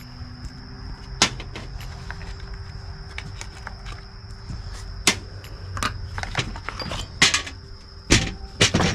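Irregular sharp clicks and knocks of hand tools and hard plastic parts being handled while a string trimmer's handle assembly is taken apart, several in quick succession near the end.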